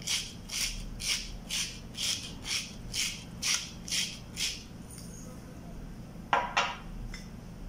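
Hand-twisted pepper mill grinding peppercorns: about ten rasping grinds at roughly two per second, stopping about two-thirds of the way through. Near the end come two short scrapes.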